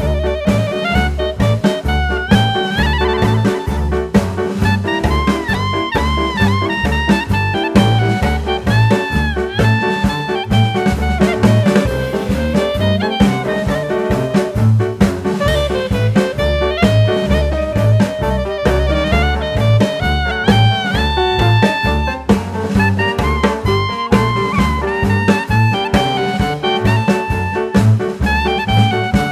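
Background music: up-tempo jazz with saxophone and brass over a steady drum and bass beat.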